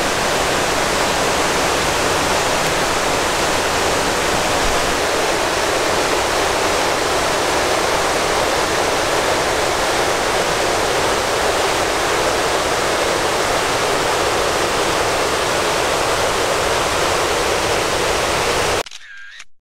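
Waterfall: a loud, steady rush of falling water. It cuts off suddenly near the end.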